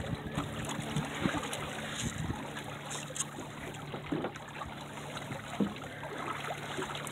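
Water trickling and washing along the hull of a MacGregor 26X sailboat running under spinnaker, with a few light knocks.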